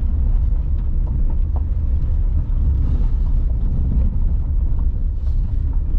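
Tata Nexon driving slowly along a rough dirt forest track, heard from inside the cabin: a steady, deep rumble of tyres, suspension and engine.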